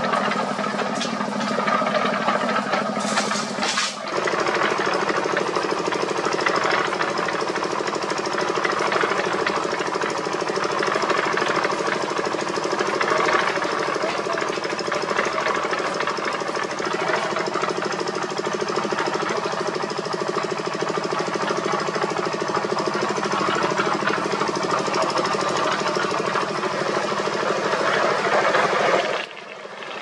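Diesel engine of a small portable cement mixer running steadily with a rapid knocking clatter, its drum turning a load of cement, broken stone and sand.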